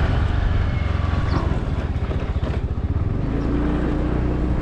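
Small motorbike engine running while riding, with wind rumbling on the microphone; a steady engine hum comes through from about three seconds in.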